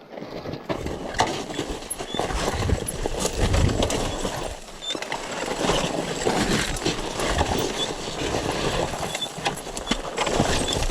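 Mountain bike rolling down a rough dirt trail: tyres crunching over the ground, with a steady run of rattles and knocks from the bike over bumps.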